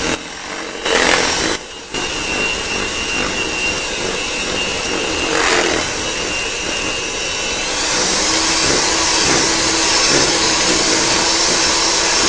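Handheld electric mixer running, its beaters whirring through a cream cheese and sugar filling in a plastic bowl to beat out the lumps. It dips briefly twice near the start, then runs steadily, growing a little louder and shriller about two-thirds of the way through.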